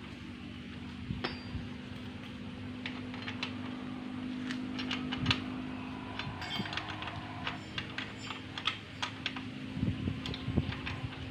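Hand tools clicking and clinking on the bolts of a motorcycle engine, in scattered light metallic ticks that come thicker near the end, over a steady low hum.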